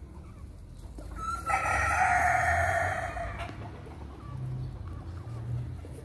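A rooster crowing once: one long call starting about a second in and lasting about two seconds.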